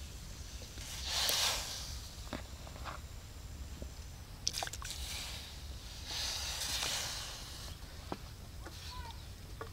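Chicken feet dropped into a hot metal wok of shallow steaming water, which hisses in two short bursts about a second in and again around six seconds in, with a few light clicks and knocks between.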